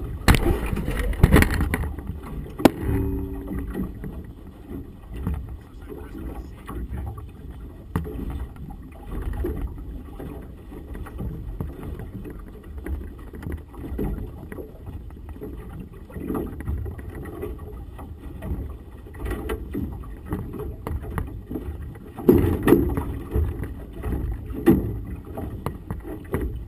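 Small outboard motorboat under way in choppy harbour water: a continuous low rumble with water sloshing and wind buffeting the microphone. The buffeting is strongest at the very start and again about three-quarters of the way through.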